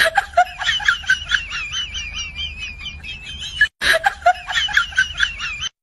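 Rapid, high-pitched giggling notes wavering up and down about five times a second, a sped-up laughter sound effect, with a short break about two-thirds through.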